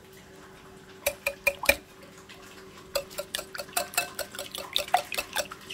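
Wire whisk beating eggs in a ceramic bowl, its wires clicking against the bowl's side: a few clicks about a second in, then a quick, steady run of clicks from about three seconds in.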